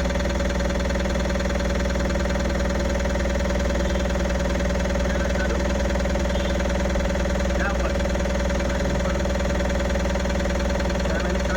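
Tata Ace Gold BS6 two-cylinder diesel engine idling steadily, running normally now that its cut crank-position-sensor wire has been rejoined.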